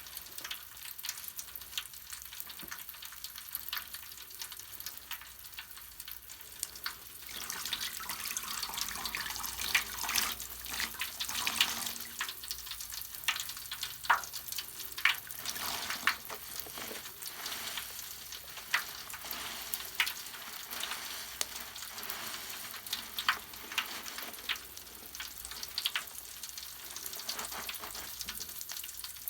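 Bath foam crackling and fizzing: a dense hiss of tiny bubbles bursting, with scattered sharper pops, louder from about seven seconds in.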